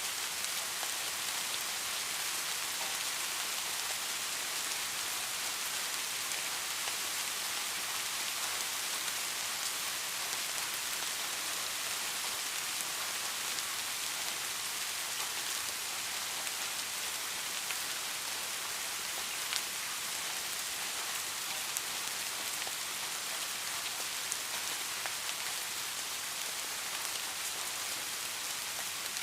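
Soft, steady rain falling on a surface: an even hiss of many fine drops, with now and then a single louder drop tick, one standing out about two-thirds of the way through.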